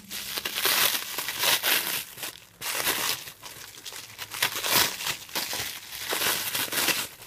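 Blue plastic wrap being pulled off a small box and crumpled by hand: irregular crinkling and crackling, with a brief pause about two and a half seconds in.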